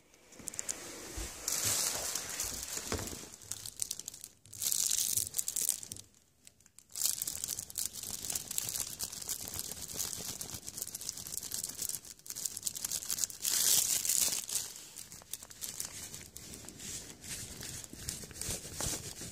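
Fabric of a cat tunnel rustling and crinkling in irregular bursts as it is handled and pushed against, with a short lull about six seconds in.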